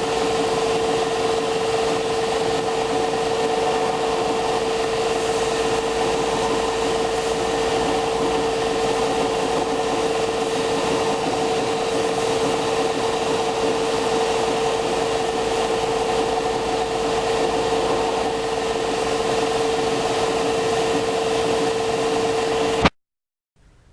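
Electric power sander running steadily with a constant whine, sanding a pecan-wood knife handle down to the size of the tang; it cuts off abruptly about a second before the end.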